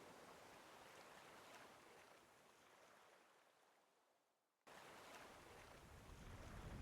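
Faint, even wash of recorded ocean waves fading out to near silence. About four and a half seconds in, a soft rush of brown noise cuts in suddenly and swells, deepest in the low range.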